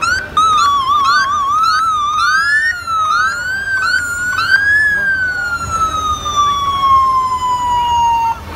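Police motorcycle sirens passing close: a fast yelping warble at first, two sirens overlapping, then slower wails, then a single long wail that falls steadily in pitch and cuts off near the end.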